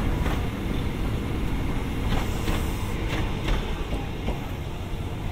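Japanese-built electric commuter train running past at low speed: a steady low rumble with sharp clicks of the wheels over rail joints several times.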